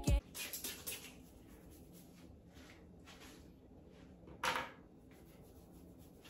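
Faint handling sounds, light clicks and rustles, with one short, louder hissing burst about four and a half seconds in.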